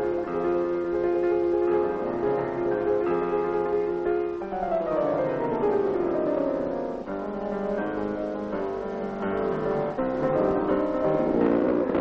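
Piano music playing held chords, with a falling run of notes in the middle.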